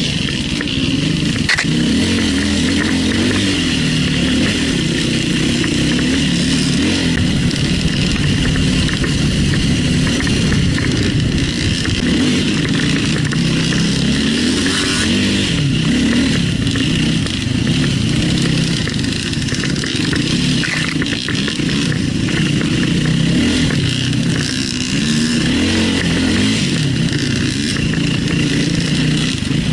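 Enduro motorcycle engine running continuously under load, its revs rising and falling as it climbs a trail.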